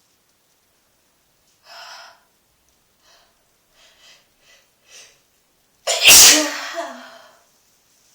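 A person's faint, short breaths building up, then one loud sneeze about six seconds in, ending in a falling vocal tail.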